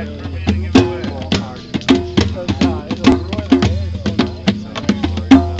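Live acoustic jam: acoustic guitars playing under busy, quick percussion hits and a low drum beat.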